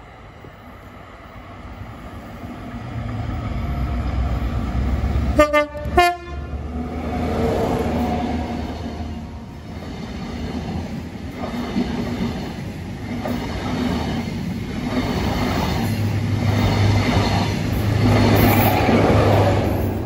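A Class 43 HST diesel power car sounds two short toots on its horn about five seconds in as the train approaches. The power cars and Mk3 coaches then pass at speed with rhythmic wheel clatter, and a low engine note grows louder near the end.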